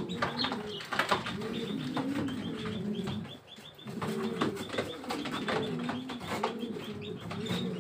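Several domestic pigeons cooing over and over in low, wavering notes, with scattered sharp knocks and wing flaps, and a brief lull about three and a half seconds in.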